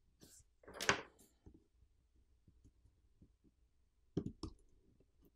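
Faint handling sounds of a SIM eject tool and SIM tray being taken out of a Google Pixel 8: a brief scrape about a second in, then two sharp clicks a little after four seconds.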